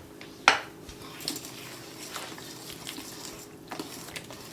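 Mixing bowl and utensil handling while the eggs are added to the filling: a sharp clink about half a second in, then faint scrapes and a few light clicks.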